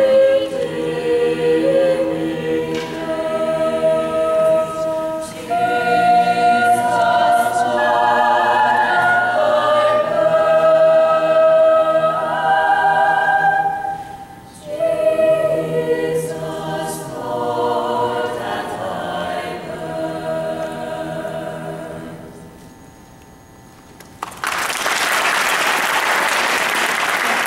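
Mixed teenage choir singing sustained chords in several parts, which dies away near the end of the song. After a short hush, audience applause breaks out about 24 seconds in.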